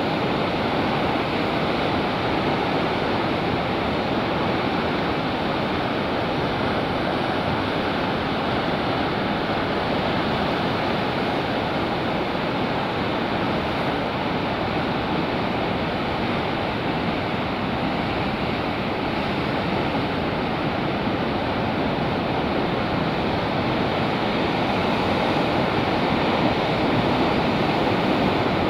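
Ocean surf breaking and washing over a rocky shoreline: a steady, unbroken rush of churning water.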